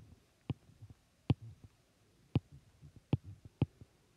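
Stylus tapping and dragging on an iPad's glass screen while a word is handwritten: about six sharp, irregular clicks as the tip touches down, with soft low knocks between them.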